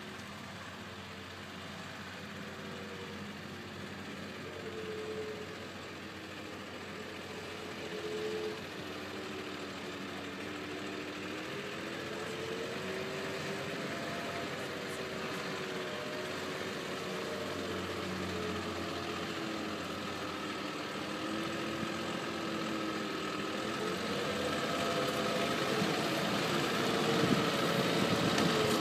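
Diesel engine of a Renault forest-fire tanker truck running at low revs as it crawls over a rough dirt track, its pitch rising and falling with the throttle. It grows steadily louder as the truck comes closer.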